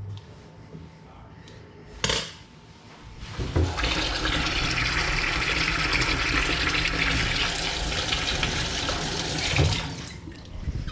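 A short knock, then a kitchen tap running in a steady stream for about six seconds before it is shut off.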